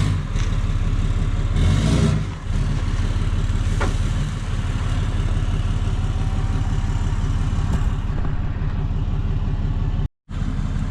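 Truck engine running steadily, with a brief louder swell about two seconds in. The sound cuts out completely for a moment near the end.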